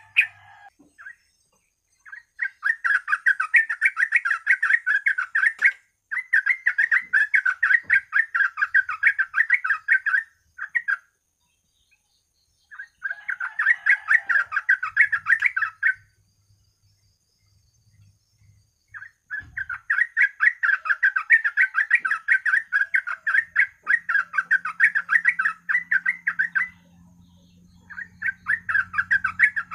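Yellow-vented bulbul (trucuk) singing in long bursts of rapid, rolling chatter, each run lasting several seconds with short pauses between, typical of a trucuk 'ropel' bait recording. A faint low hum comes in near the end.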